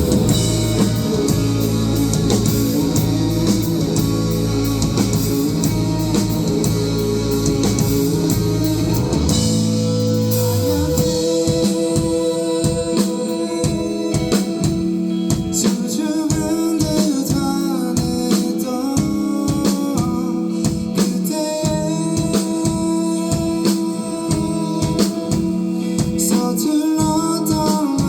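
Live rock band with electric guitars, bass and drum kit. A loud, sustained full-band passage changes about ten seconds in to a lighter, rhythmic part driven by the drums.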